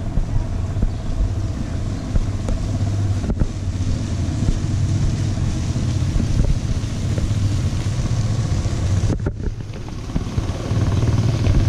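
Motorcycle engine, the Triumph Tiger 800's three-cylinder, running steadily under way with wind on the microphone. The sound dips briefly about nine seconds in.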